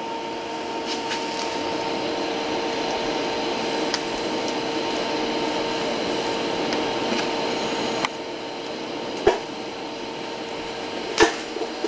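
TIG welding arc burning steadily: an even hiss with a faint steady hum, the weld laid to pull a tilted piece back straight. A few sharp clicks come in the second half.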